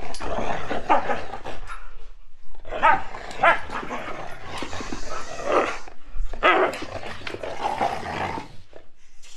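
Siberian huskies play-wrestling and vocalizing at each other, in three bouts with short pauses between.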